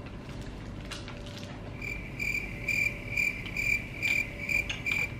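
Stock cricket-chirping sound effect: a high chirp repeating about twice a second, starting about two seconds in, over faint room tone.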